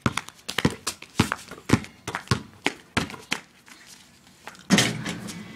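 A quick run of sharp slaps and taps on a concrete driveway, about four a second for some three seconds, then one louder scuffing burst near the end.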